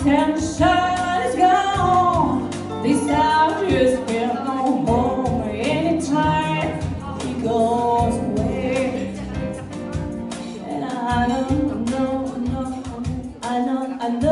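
A woman singing a jazz or soul melody into a microphone, with electric keyboard accompaniment holding low chords beneath her voice.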